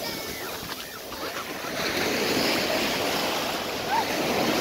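Surf washing onto a sandy beach, the wash swelling about two seconds in.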